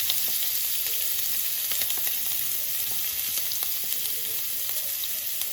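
Chopped shallots and green chilli sizzling in a little hot oil in a preheated pan: a steady hiss with scattered crackles.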